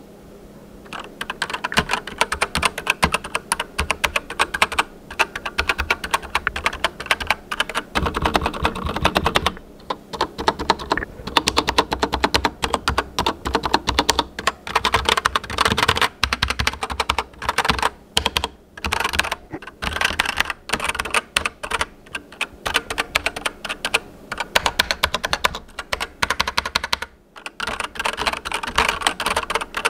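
Typing on a Keychron K8 mechanical keyboard with brown optical switches: a fast, continuous clatter of keystrokes that starts about a second in, with a couple of brief pauses.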